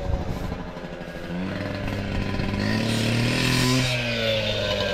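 Small two-stroke engine, most likely a gas cut-off saw used for cutting pavers, revving up about a second and a half in, holding high for a couple of seconds, then dropping back toward idle. A short knock sounds at the very start.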